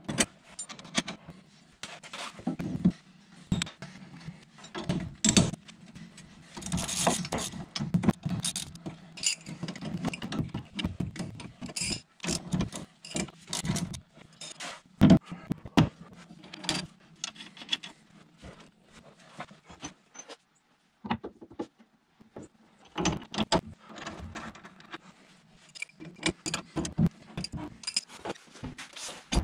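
Irregular clinking, clattering and scraping of metal parts and hand tools being handled, many short knocks at uneven intervals with a few louder ones.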